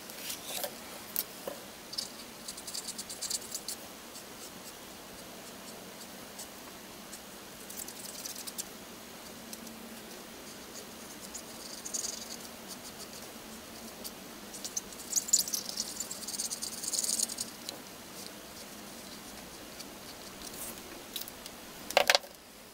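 India ink marker tip scratching across paper in short bursts of colouring strokes, with a sharp click near the end.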